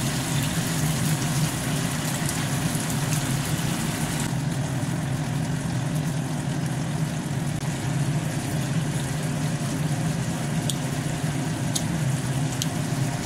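Chicken and button mushrooms simmering in a soy-sauce braise in a frying pan, stirred with a spatula, over a steady low kitchen hum. The sizzle is stronger for the first few seconds, and a few light taps of the spatula on the pan come near the end.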